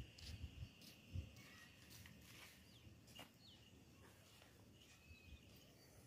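Near silence: faint outdoor ambience with a few short, faint bird chirps and a soft low thump about a second in.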